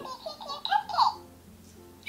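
Little Live Pets talking lovebird toy repeating the child's words back in a sped-up, high-pitched chipmunk voice, for about a second.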